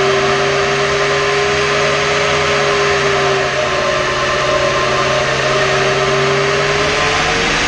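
Rebuilt 4.6-litre SOHC V8 of a Mercury Grand Marquis running under load on a roller chassis dyno, with a loud steady whir from the drive wheels and rollers. The engine note holds fairly steady, dips a little midway, then starts to rise near the end as the final pull begins.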